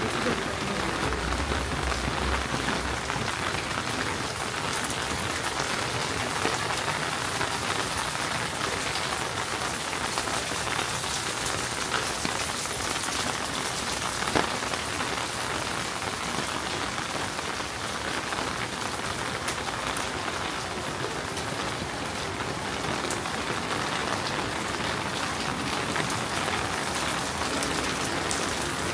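Steady rain falling, a dense hiss made of countless fine drop ticks. There is a brief low rumble a second or two in and one sharper tap about fourteen seconds in.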